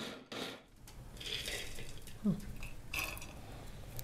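Kitchen handling noises: light clatter and a few sharp clicks of dishes and utensils.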